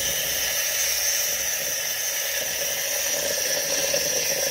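Steam wand of a Philips Saeco Poemia espresso machine hissing steadily as it vents steam and hot water into a plastic jug, flushing descaling solution through the steam circuit.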